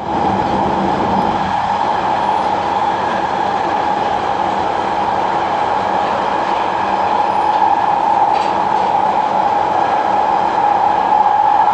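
London Underground Central line train running, a loud steady rumble of wheels and motors with a constant high whine.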